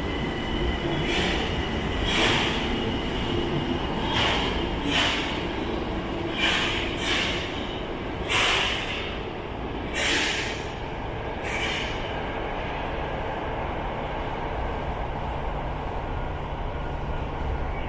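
Tokyo Metro Marunouchi Line train pulling out of the station and running off into the tunnel: a steady rumble broken by short hissing screeches every second or so that thin out after about twelve seconds.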